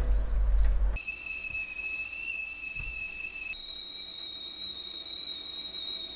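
Stovetop whistling kettle whistling at the boil. The steady high whistle starts about a second in and jumps up in pitch about halfway through.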